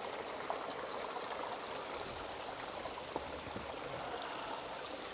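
Steady rush of a freshwater stream running over rocks, with a couple of faint ticks.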